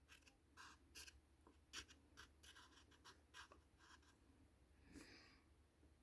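Faint, short scratching strokes of drawing on paper, a dozen or so spaced irregularly.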